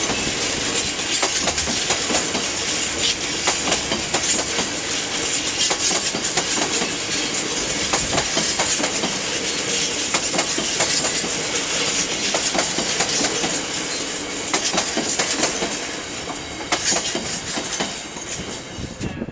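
Freight train of covered bogie hopper wagons rolling past, the wheels clacking over rail joints in a quick run of sharp clicks. The sound eases off near the end as the last wagons go by.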